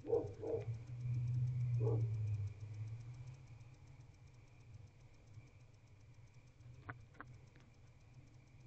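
Barn owl in a wooden nest box tearing at and swallowing a rodent: muffled knocks and scuffs at the start, a low rumbling brush about a second in, then two sharp clicks near the end.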